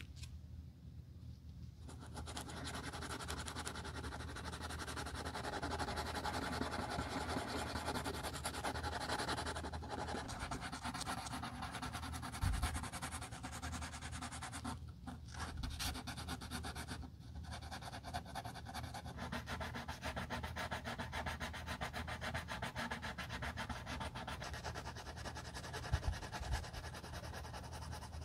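Small strip of sandpaper rubbed by hand over the scuffed toe of a leather slipper: a fine, scratchy rasp of quick short strokes that starts about two seconds in. There are a couple of brief pauses and two soft knocks.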